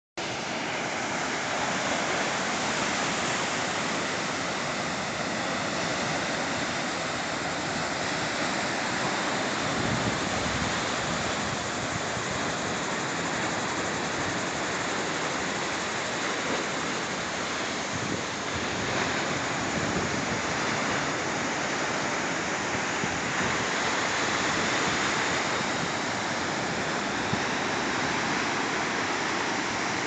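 Sea surf breaking and washing over a stony beach: a continuous rush of water that swells and eases gently as the waves come in.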